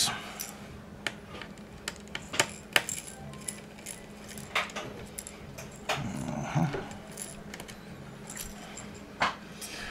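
Small Phillips screwdriver backing tiny screws out of a laptop's LCD bracket: scattered light metallic clicks and taps, a dozen or so spread irregularly over the seconds, over a faint steady hum.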